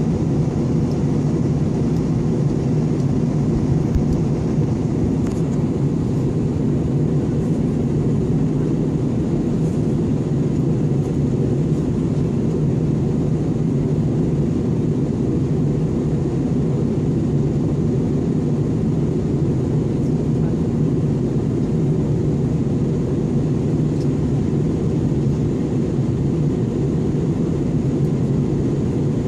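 Steady drone inside a jet airliner's cabin in flight: engine and airflow noise, low and unchanging.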